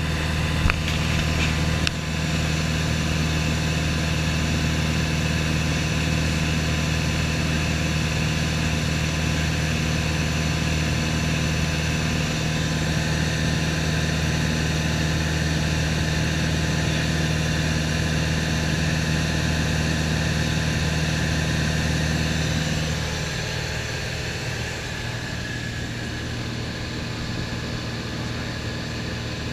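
Single-engine propeller plane's engine and propeller droning steadily, heard inside the cabin. About three-quarters of the way through, the drone becomes quieter and lower, then carries on steadily.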